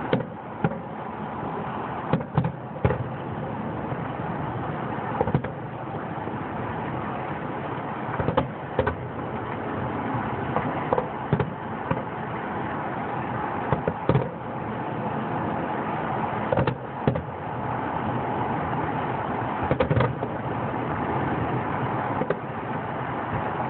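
Aerial firework shells bursting: about twenty sharp booms at irregular intervals, often two close together, over a steady background noise.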